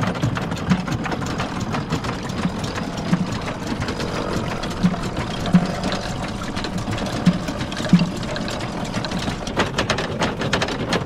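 Miniature water-powered mill machinery, turned by a small water wheel in a creek, knocking in a steady rhythm a little faster than once a second over the rush of running water.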